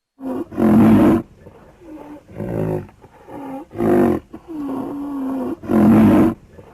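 Rhinoceros calling repeatedly: three loud, breathy calls with softer, shorter calls in between, one of them drawn out just past the middle.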